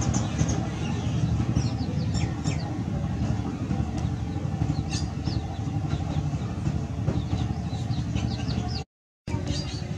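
Outdoor ambience: a steady low rumble under many short, high chirps from birds, with the audio cutting out for a moment near the end.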